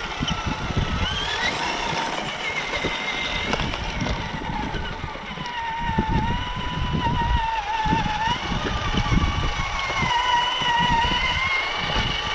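Radio-controlled crawler truck's electric motor and gears whining as it tows a loaded trailer up a dirt slope, the whine rising and falling in pitch with the throttle, over a low, uneven rumble.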